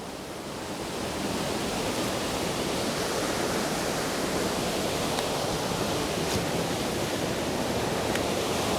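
A large waterfall in heavy flow after much rain, a steady dense rush of falling water heard from high up at its brink, growing a little louder over the first second.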